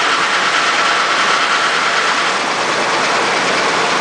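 Freshly rebuilt engine of a 1987 Jaguar running at a steady idle just after its first start.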